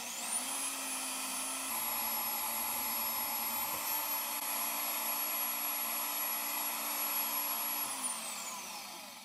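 Milwaukee deep-cut portable band saw, mounted vertically in a bench table and run from a foot pedal, whining up to speed and cutting through a stainless steel tube. Its motor runs steadily under the cut, then spins down with a falling whine near the end.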